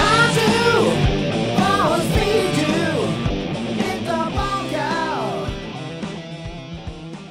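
Rock cover band playing with electric guitar, bass and drums, a high melody of bending notes riding over it; the music fades down toward the end.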